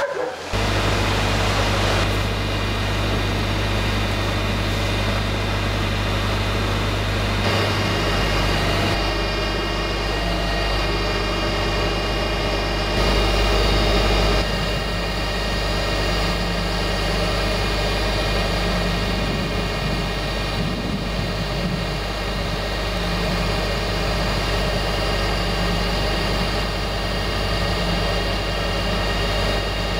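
Ural-4320 truck's diesel engine running steadily while it powers the knuckle-boom crane, with a steady high whine over the engine that grows stronger about a third of the way in.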